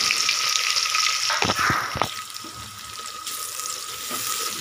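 Sliced onions sizzling in hot oil in an aluminium pressure cooker as they go in, with a few knocks of the spatula against the pan about a second and a half in. The sizzle then settles and grows quieter.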